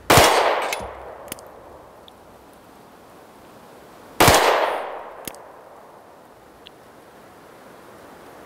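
Two single 9mm pistol shots from a Glock 43 firing 124-grain jacketed hollow points, about four seconds apart, each with a short echo trailing off. A faint light tick follows about a second after each shot.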